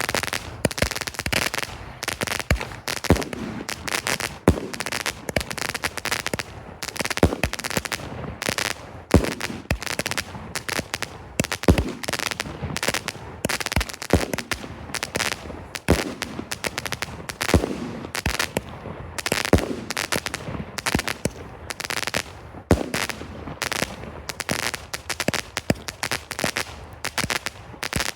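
An 81-shot 200-gram mine cake (Shogun 'Fear of Missing Out') firing: a fast, unbroken run of sharp shots, with crackling mines mixed through them.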